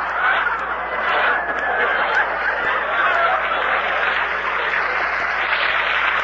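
Studio audience laughing in one long, unbroken laugh at a punchline.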